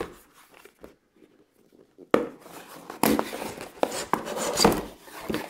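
Cardboard packaging being handled: a sharp knock about two seconds in, then scraping and rustling as a cardboard box slides out of its outer cardboard box, with scattered clicks.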